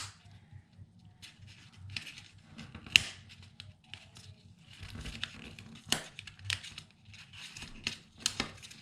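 Paper and cardstock pieces being handled and rustled on a desk, with scattered crinkles and a few sharp clicks and taps, the loudest about three and six seconds in.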